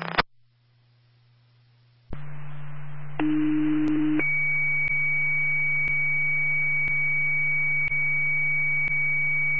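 Radio dispatch tone-out heard through a scanner: the channel keys up with hiss and a low hum, then a low tone sounds for about a second, followed by a long steady high tone of about six seconds with faint ticks about once a second. It is a two-tone page alerting another town's police and emergency squad ahead of a mutual aid call.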